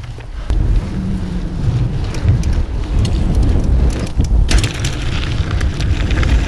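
Wind buffeting the camera microphone as a mountain bike rolls along a gravel forest track. From about four and a half seconds in, the tyres crunch over loose gravel with many small clicks.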